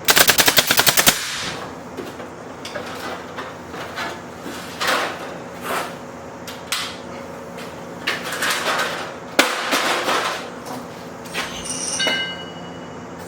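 Wooden board being nailed down: a fast rattling run of sharp impacts for about a second at the start, then scattered single knocks and thuds.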